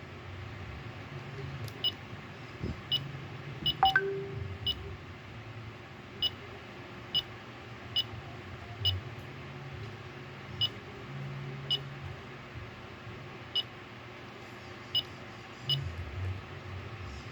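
Short, high electronic beeps from a digital alarm clock, about fifteen of them at uneven intervals, like buttons being pressed one at a time, with one brief rising chirp about four seconds in.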